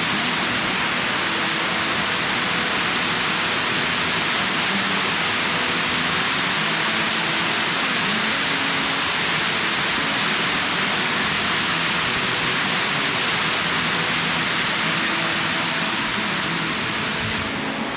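Waterfall, a steady loud rush of falling water, until it cuts away to a quieter sound near the end.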